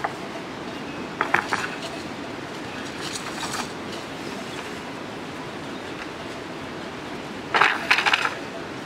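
Wooden poles and planks knocking and clattering as they are handled and set against a shelter. Three short bursts of knocks, the loudest near the end, over a steady background hiss.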